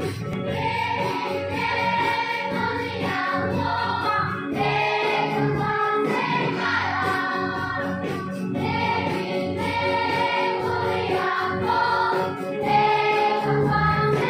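Children's choir singing a Christian song together with young song leaders on microphones, over a steady drum-kit beat.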